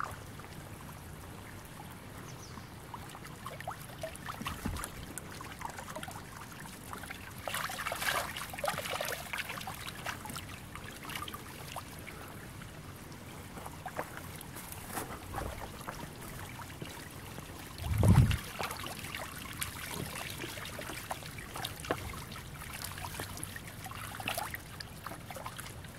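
Shallow river water trickling among stones, with scattered crackles, a louder crackling stretch about eight seconds in, and one loud low thump about two-thirds of the way through.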